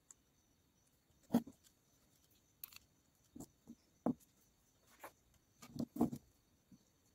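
Light, irregular knocks and clicks of small parts being handled and set down on a work mat: a cylindrical lithium-ion cell and the tape-wrapped grinder body. About nine in all, the loudest a little over a second in and near the end.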